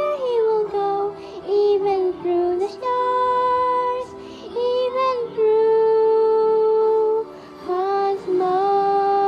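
A young girl singing a slow melody in long, held notes that slide from one pitch to the next, with short breaths between phrases.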